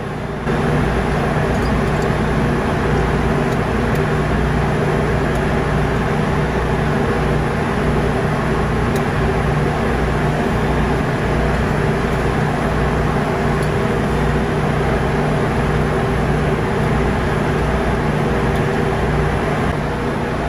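Ship's engine-room machinery running steadily: a loud, even drone with a constant low hum underneath.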